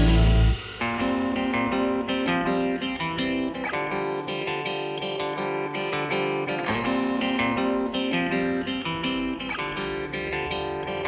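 Background music: plucked guitar notes played one after another. A louder, fuller passage drops away about half a second in.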